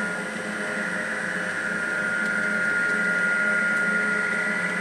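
Model train running on a layout, a steady high whine over an even hiss.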